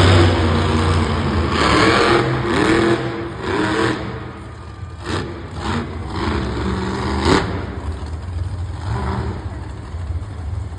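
Monster truck's supercharged V8 engine revving hard and surging up and down in pitch over a loud low rumble.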